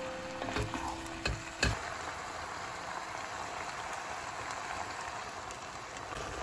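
Chopped vegetables sizzling in a hot enameled cast-iron pot, a steady hiss, with a few sharp clacks of a wooden spoon against the pot in the first two seconds.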